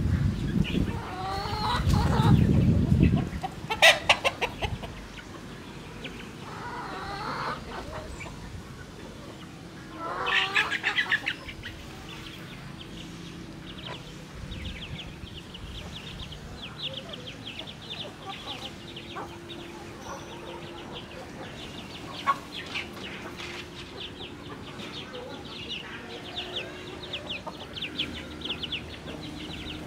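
Hens and a rooster clucking and calling while foraging, in scattered short calls. A low rumble fills the first few seconds, and a run of quick, high, chirping pulses carries through the second half.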